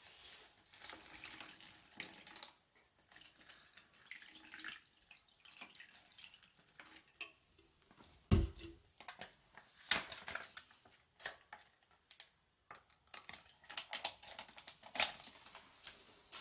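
Water poured from a pouch into a Barocook flameless cooker's plastic container onto its heating pack, with rustling of the pouch and light clicks of plastic. There is a dull bump just after eight seconds in.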